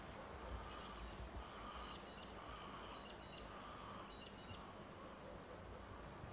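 A bird calling: a pair of short, high chirps repeated four times, about once a second, over a faint steady background hiss.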